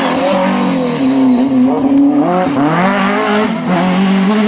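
Renault Clio Ragnotti rally car's engine under hard load. Its pitch sags about a second and a half in as the driver lifts or shifts, then climbs steeply again as the car accelerates away, and holds high to the end.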